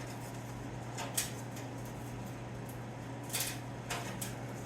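A few light clicks and clinks of metal being handled over a steady low hum.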